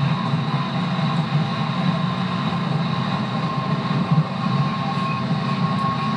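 JR 211 series electric train running at steady speed, with a constant low rumble of the wheels on the rails and a steady whine from its traction motors with external cooling fans.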